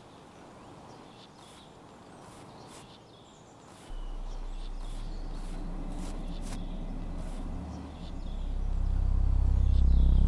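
Faint woodland ambience with scattered short bird chirps. About four seconds in, a deep, steady bass drone starts, and from about eight seconds a low, tonal swell builds up loud, typical of a film score rising under a scene change.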